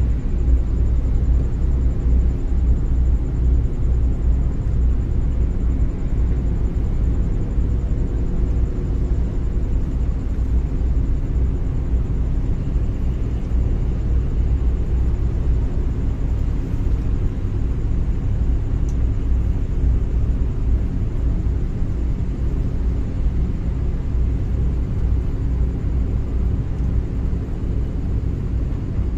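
Steady low rumble of a vessel's engine running, with several steady low hums in it.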